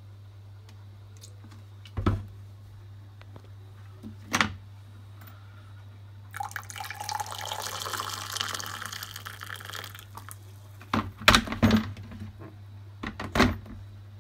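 Hot water poured from an electric kettle into a glass mug of blackcurrant cordial, a steady pour of about four seconds. Sharp knocks and clinks of the bottle, kettle and glass on the worktop come before and after the pour, over a steady low hum.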